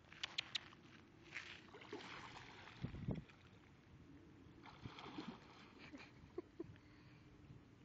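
Faint splashing of water from a swimming dog, in short irregular patches, with a few sharp clicks in the first second and a dull low thump about three seconds in.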